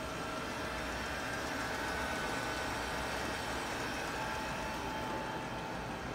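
Canon imagePRESS C1 colour production printer running: a steady mechanical hum with a few faint, steady high whining tones.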